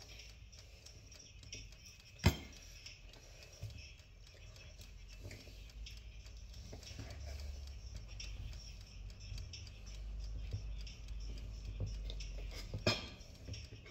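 Faint handling noises during food assembly, with two sharp clicks, one about two seconds in and one near the end, over a low rumble.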